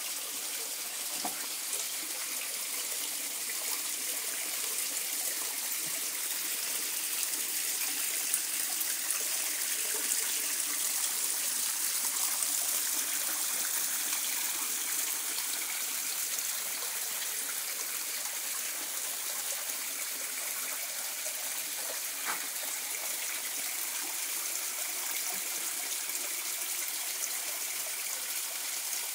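Small pump-fed pond waterfall from an Aquascape Micro Pond Kit, with water spilling over rocks in a few thin streams into the pond: a steady splashing trickle.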